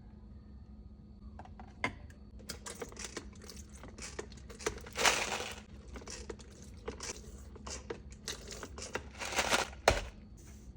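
Rustling and crinkling handling noises with scattered clicks and knocks, as ingredients and packaging are handled to prepare a drink. There are two longer rustles about five and nine and a half seconds in, and one sharp knock just before ten seconds.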